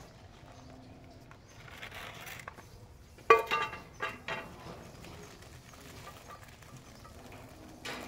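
A puppy yelping: one sharp, loud yelp about three seconds in, then a few shorter, fainter ones in quick succession.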